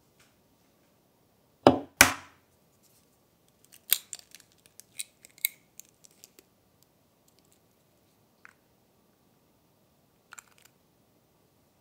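An egg knocked twice against the rim of a bowl to crack it, the two loudest sounds. Then the shell crackles and clicks as it is pulled open and the yolk is separated, with a few faint ticks near the end.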